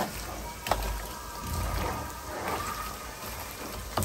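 Onions frying in mustard oil in a kadhai, a steady crackling sizzle, with a couple of sharp clicks as raw marinated chicken is mixed by a gloved hand.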